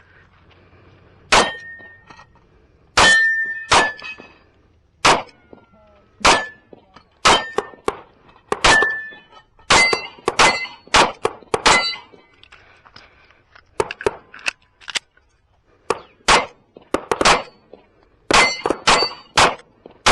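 9mm Sig Sauer P365 pistol firing a long string of shots at an uneven pace, with a short break about twelve seconds in. Steel targets ring after many of the hits.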